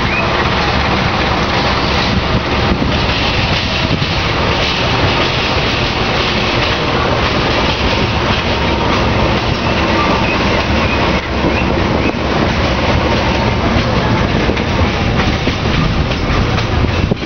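Passenger train arriving at its terminus, its coaches rolling past and the wheels clattering over the rail joints in a steady rumble. A few faint, brief squeals come from the wheels now and then.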